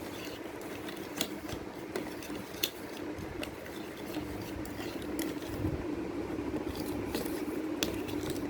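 A spoon stirring thick slime mixture in a bowl, with scattered light clicks and scrapes against the bowl over a steady low hum.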